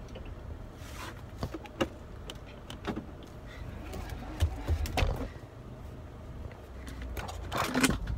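Car running, heard from inside the cabin as it is driven off: a steady low rumble, with scattered knocks and clicks and a louder burst of noise near the end.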